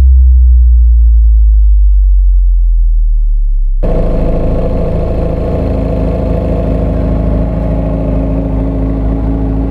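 A deep, steady low bass tone for the first four seconds, then a Kawasaki ZX-6R's inline-four engine cuts in, running steadily.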